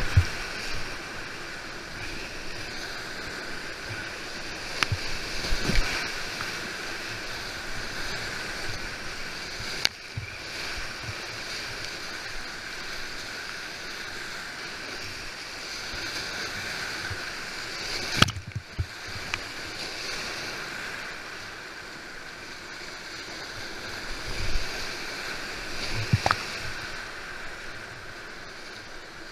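Rushing whitewater of fast river rapids heard close up from a kayak, a steady hiss of churning water. A few sharp knocks and splashes break through it, the loudest a little past halfway.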